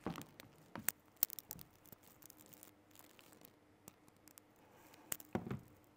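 Scattered light clicks and taps from a laptop keyboard and trackpad being worked, over a faint steady hum, with a brief low muffled sound about five seconds in.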